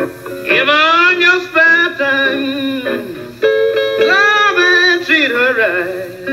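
Country blues recording: a man singing a drawn-out line with vibrato over acoustic guitar. The singing starts about half a second in and stops near the end, where the guitar carries on alone.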